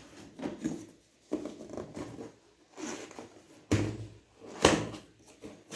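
Cardboard packaging being handled: a few sudden knocks and scrapes with rustling between them.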